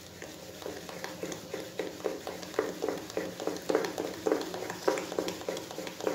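Spoon stirring thick cake batter in a stainless steel bowl as flour is worked in: a rhythmic run of short strokes, about three a second.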